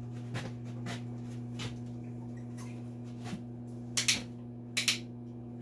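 Steady electrical hum of a switched-on MIG welder, with faint clicks and handling noises and two brief hissy bursts about four and five seconds in.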